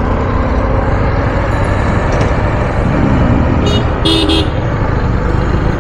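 Motorcycle riding through street traffic, a steady low rumble of engine and road, with a vehicle horn honking twice a little past halfway, a short toot and then a slightly longer one.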